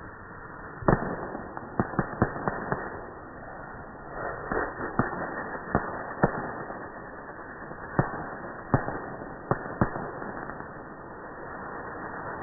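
Fireworks going off: about a dozen sharp, irregularly spaced bangs over a continuous crackle, with several quick clusters of reports.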